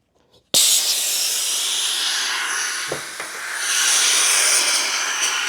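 Air hissing out of a tire through a broken valve stem, starting suddenly with a click about half a second in and running steadily, easing briefly midway and then swelling again.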